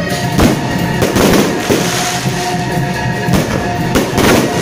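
Aerial firework shells bursting overhead: an irregular series of sharp bangs, several a second at times, with steady music carrying on underneath.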